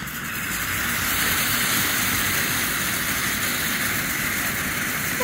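A ground fountain firework spraying with a steady, rushing hiss that builds over the first second and then holds.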